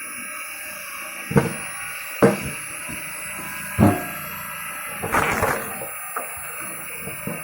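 Firewood being worked: three loud, separate knocks of wood being struck, then a short crackling clatter of split wood.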